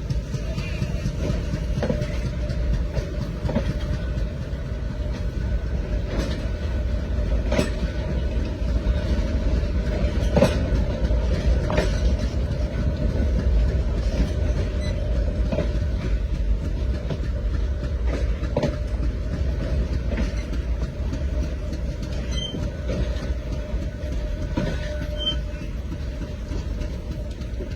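Train running along the track: a steady low rumble, with wheels clacking over rail joints every second or two.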